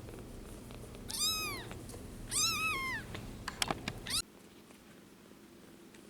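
Two-week-old kitten mewing: two high-pitched mews, each under a second long, then a few short squeaks. A low steady hum in the background stops abruptly partway through.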